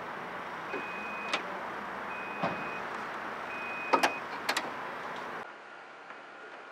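Power tailgate's warning beeps on a pickup truck, a steady high beep repeating about every second and a half, with sharp mechanical clicks of the tailgate mechanism and a double click of it latching about four seconds in. About five seconds in the sound drops to a quieter steady hum.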